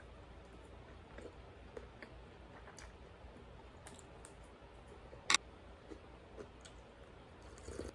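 Quiet eating sounds: scattered light clicks of metal utensils, with one sharp clink about five seconds in, a spoon striking the metal soup pot.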